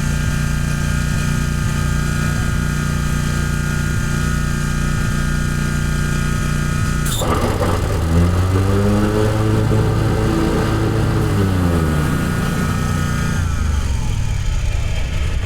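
V-twin engine of a zero-turn riding mower running steadily. About seven seconds in, a click is followed by its speed climbing and then easing back down over several seconds before it settles again.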